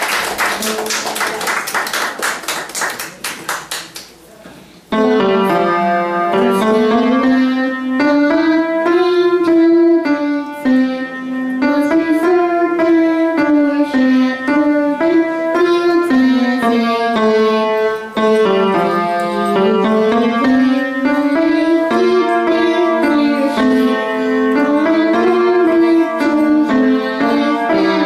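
Applause fading out over the first four seconds, then an upright piano played, with the melody moving up and down in runs over a lower line.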